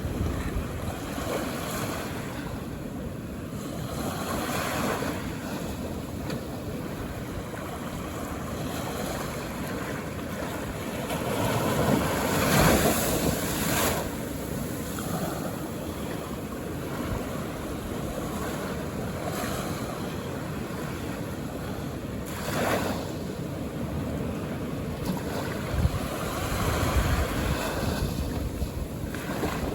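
Calm ocean waves washing onto a beach in a steady rush of surf, swelling to its loudest about halfway through as a larger wave breaks. Wind buffets the microphone in low gusts near the start and again near the end.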